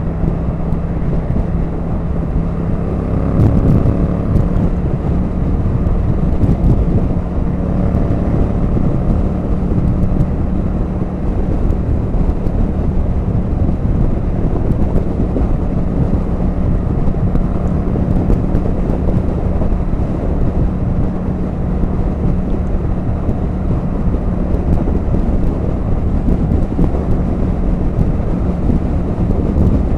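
Heavy wind buffeting on the rider's microphone on a naked motorcycle at motorway speed, over a steady engine drone.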